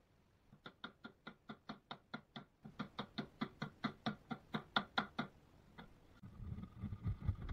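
Mallet striking a wood chisel in a quick, steady series of taps, about four a second and growing louder, paring away a wooden filler piece. A low rumbling sound takes over near the end.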